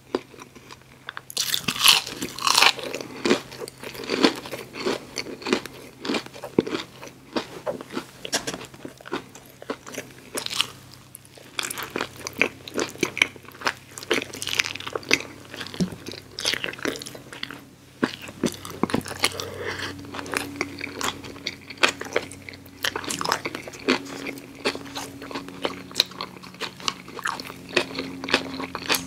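Close-miked eating sounds: crunchy bites and chewing of a battered onion ring, then bites into a burger with chewing. The crunch is loudest about two seconds in.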